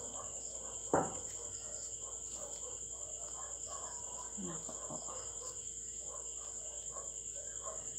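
Beef and onions simmering in a frying pan as a spatula stirs them, with a sharp knock of the spatula on the pan about a second in. Crickets chirp steadily in the background.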